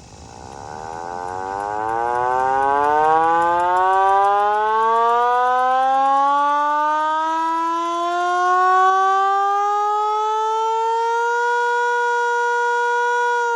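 Vixen Horns VXS-2000MTP hand-crank siren winding up on a short attack signal: its wail climbs steadily in pitch for about eleven seconds, then holds at top pitch near the end.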